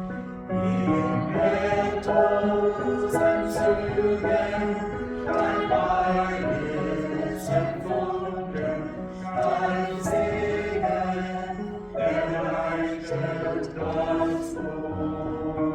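Church choir singing slowly in several parts, with long held notes and a steady low note underneath.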